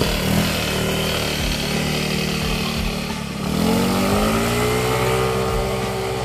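Yamaha Mio i125 scooter engine running steadily, then revving up about three and a half seconds in, its pitch rising and levelling off as the scooter pulls away. It has an RS8 CVT set with a stiff 1000 RPM clutch spring, so it needs high revs before it moves.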